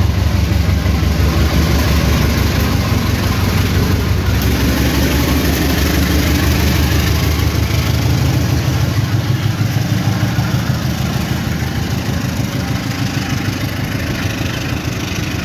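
KAI CC206 diesel-electric locomotive running past with a long-distance train, its engine loud and low. It is followed by the steady rumble of passenger coaches rolling by on the rails, slowly fading.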